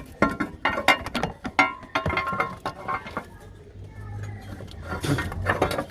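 Metal clinks and knocks as a steel battery hold-down bracket and hand tools are handled and fitted in a car's engine bay, a quick run of sharp strikes, some ringing briefly, followed by a scraping sound near the end.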